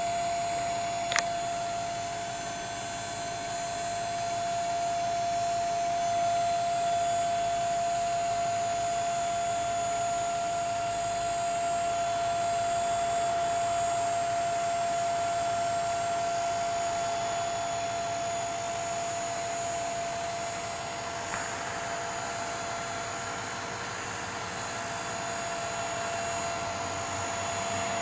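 Dump trailer's electric hydraulic pump motor running with a steady whine while the bed is tipped to unload topsoil. A single sharp click about a second in.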